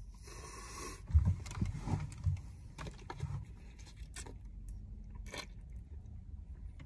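Plastic water bottle being handled and its screw cap twisted: a scraping rustle at first, a few soft knocks, then scattered small clicks.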